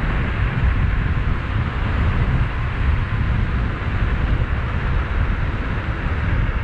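Steady wind rushing and buffeting over the microphone while riding an electric bike at speed, heaviest in the low rumble, with road noise under it.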